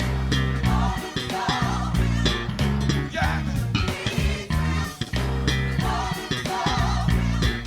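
Funk-style band music led by a prominent electric bass line, playing distinct rhythmic low notes, with guitar and a sung or lead melody above it.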